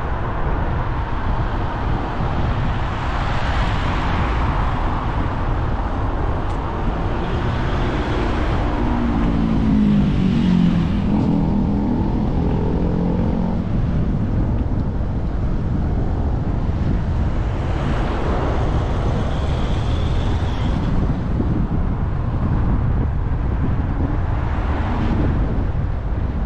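Steady rush of wind buffeting the microphone of a moving bicycle. About ten seconds in, a passing motor vehicle's engine rises and falls in pitch.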